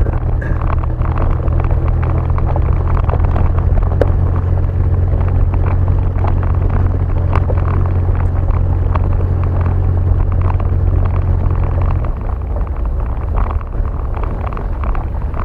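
Vehicle driving on an unpaved road: a steady low engine and road rumble with scattered rattles and knocks. The low drone drops off about twelve seconds in.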